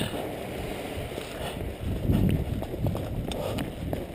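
Running footsteps on a concrete floor, an uneven series of low thuds with a few light clicks.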